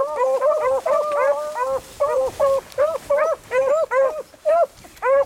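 Beagles baying on a rabbit's trail: a continuous run of short, arched cries from more than one hound, overlapping at several a second, with an occasional longer drawn-out note.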